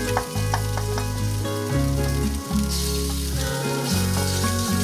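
Food sizzling in a hot wok as it is stir-fried, with the wooden spatula clicking and scraping against the pan. The sizzle brightens about three seconds in as raw diced meat goes into the egg and chilies, over steady background music.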